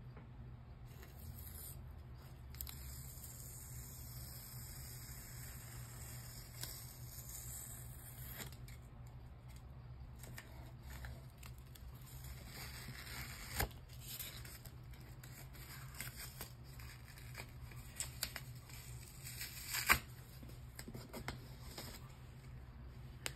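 Painter's tape being peeled off watercolour paper: a quiet, drawn-out ripping with scattered sharper ticks, the loudest near the middle and again about two-thirds of the way through.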